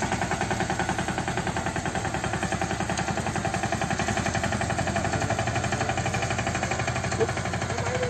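DK Champion 10 HP mini tractor's single-cylinder diesel engine chugging at a steady working speed in a rapid, even beat while it drives a crop-spraying rig.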